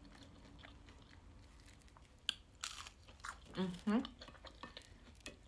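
Close-miked eating: a crisp bite into crunchy fried food a little past two seconds in, followed by chewing, with a short closed-mouth "mm" sound partway through.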